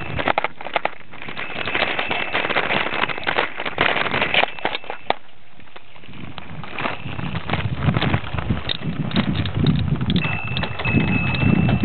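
Bicycle rattling and clattering over a bumpy dirt track, with a rapid, irregular run of knocks and wind rumbling on the microphone. It eases briefly about halfway through.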